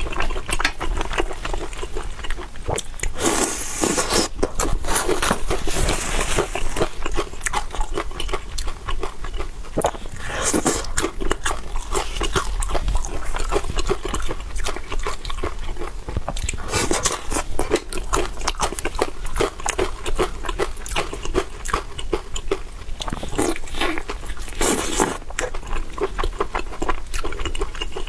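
Close-miked eating sounds: steady wet chewing and mouth clicks, with several louder stretches of biting or slurping.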